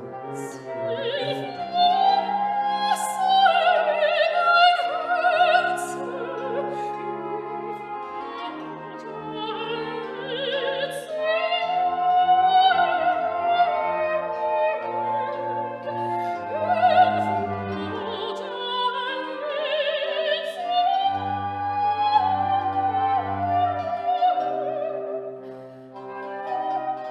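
Operatic singing with a wide vibrato over orchestral accompaniment: a sustained, gliding vocal line above held lower instrumental notes.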